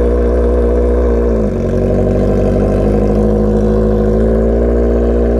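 Honda CB650R's inline-four engine idling just after a cold start, heard through its freshly repacked muffler. The idle is steady, settling slightly lower about a second and a half in.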